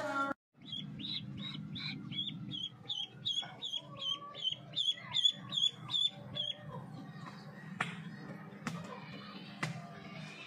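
Duckling peeping: a quick run of short, high peeps at about three a second for several seconds, then fainter and sparser, with a few sharp clicks near the end.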